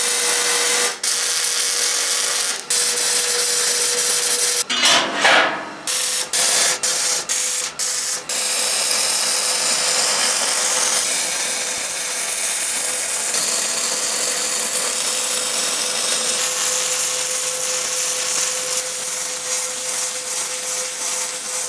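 MIG welder arc crackling on steel: a few short tack welds with brief gaps in the first eight seconds, then one long continuous bead.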